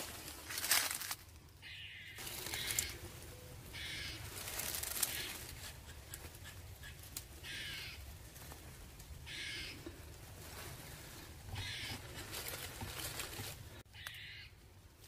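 A crow cawing: single harsh caws repeated about every two seconds, six or seven in all.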